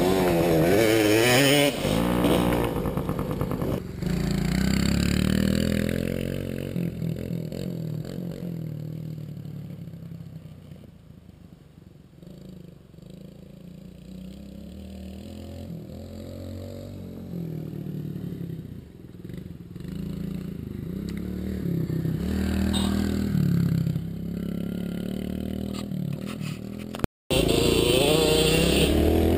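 Small kids' dirt bike engines. For the first few seconds one bike is revving up and down close by, with wind and ground rattle on a helmet camera. In the long middle stretch the engines are fainter and rise and fall as the bikes ride around at a distance. After a brief cut near the end, one bike runs loud and close again.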